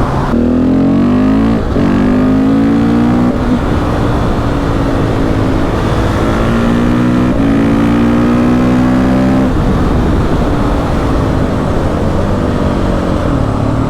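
KTM 690 SMC R's single-cylinder four-stroke engine accelerating hard through the gears, its note climbing and dropping back at each upshift several times over the first ten seconds, then holding a steadier note.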